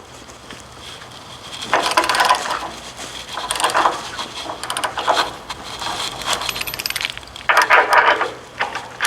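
A wrench backing off the jack screws under a machine skid: rapid metallic clicking and scraping in four or five short spells, letting the machine's weight settle onto the chocks.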